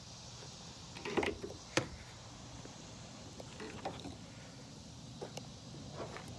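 A few sharp clicks and knocks from a Jeep Wrangler JK's rubber hood latches being unhooked and the hood catch being worked, the two clearest about a second in and just before two seconds.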